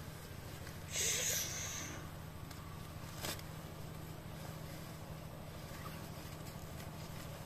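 An accipiter hawk's feathers rustle briefly about a second in as the captured bird is handled, then a single short knock comes a couple of seconds later, over a steady low hum.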